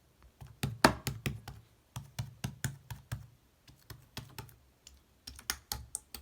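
Slime being squeezed and poked by hands, with a quick irregular run of sharp clicks and pops as air pockets in the slime burst.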